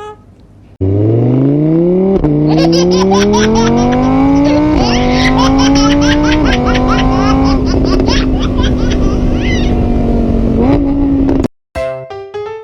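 Car engine accelerating hard, its pitch climbing and dropping back at each of three gear changes, then holding steady before cutting off suddenly.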